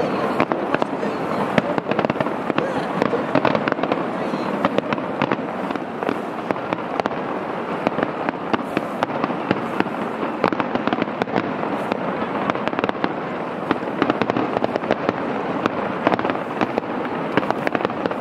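Aerial firework shells bursting in quick succession: many sharp cracks over a steady, dense crackle.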